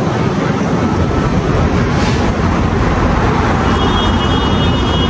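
Loud, steady city street traffic noise, with a faint high-pitched tone joining near the end.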